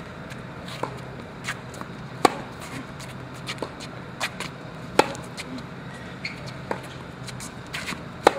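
Tennis racket striking the ball in a baseline rally: three sharp hits about three seconds apart, with fainter ball bounces, distant hits and footsteps between them over a steady low hum.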